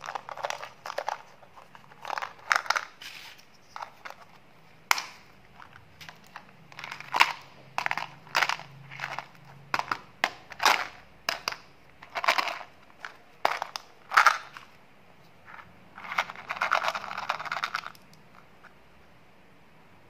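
Small plastic bottles of pressed candy tablets being handled and opened: a run of short crinkling and crackling sounds with sharp clicks, one especially sharp click about five seconds in. Near the end there is a longer rattle as the tablets are shaken out into a palm.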